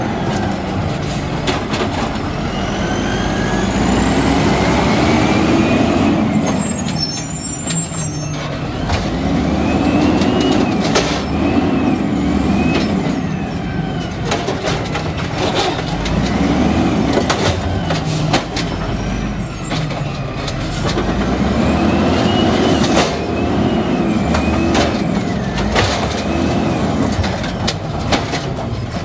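Peterbilt garbage truck with an Amrep automated side-loader arm at work. The diesel engine revs up and falls back several times as the hydraulic arm lifts and dumps carts, with a rising and falling hydraulic whine and knocks from carts and rubbish. Air brakes hiss now and then.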